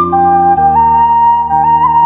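Background music: a slow melody in held notes stepping upward over sustained chords, the chord changing about half a second in.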